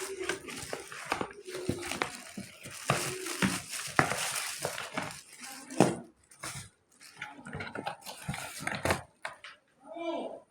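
Packaging being handled while a keyboard is unboxed: plastic wrapping crinkling, with irregular knocks and clicks of the box and its contents.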